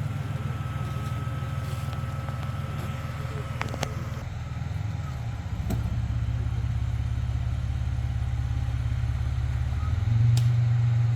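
Off-road 4x4's engine running at low speed, a steady low rumble that shifts about five seconds in and gets louder near the end.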